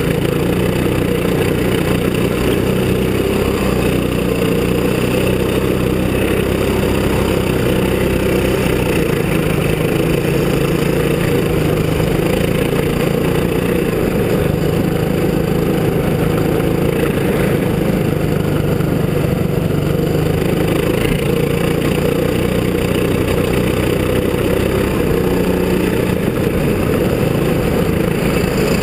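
Go-kart engine running continuously, heard from on board the kart while it is driven, its note holding fairly steady with small shifts in pitch.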